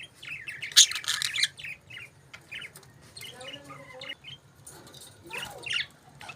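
Pet budgerigars chirping and chattering in short, varied calls, with a loud burst of calls about a second in and another cluster of calls near the end.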